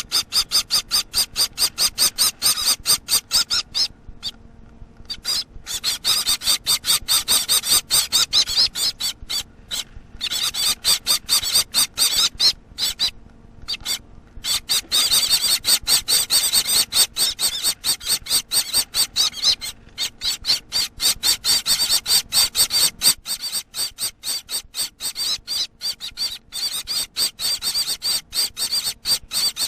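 Gouldian finch nestlings, about a week old, begging for food: a rapid, high-pitched chatter of many short calls a second, pausing briefly a few times.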